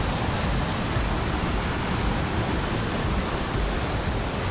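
Steady rushing of water from the small waterfall feeding the Blue Eye pool, with a heavy low rumble.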